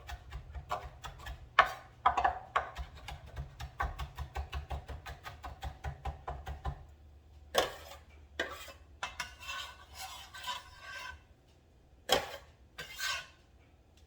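A knife chopping quickly on a cutting board, dicing a Scotch bonnet pepper, with many short taps a second. About halfway through the chopping stops, giving way to a few louder knocks and scraping sounds.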